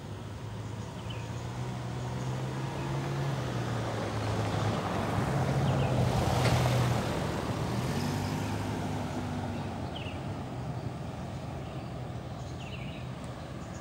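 A motor vehicle passing by: its engine sound swells to a peak about halfway through and then fades away, with a few faint short chirps over it.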